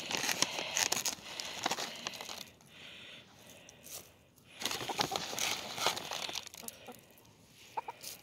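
Crinkly rustling and scattered light clicks as worm treats are handed out to a flock of hens pecking at the ground. The sounds come in two busy spells with a quieter lull between them.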